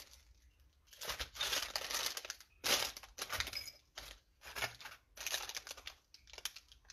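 Plastic bags and cellophane wrappers crinkling and rustling in irregular bursts as hands rummage through a box of craft odds and ends.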